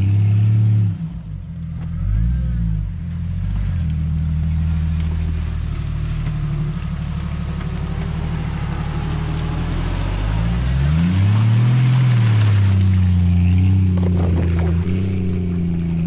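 Jeep Cherokee XJ's engine revving as it drives through mud and slush, its pitch rising and falling about two seconds in and again around eleven to twelve seconds.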